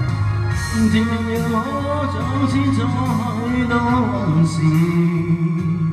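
Karaoke backing track of a Mandarin pop ballad with a man singing along into a handheld microphone; his wavering sung line runs from about a second in to about four seconds in, then a low note is held.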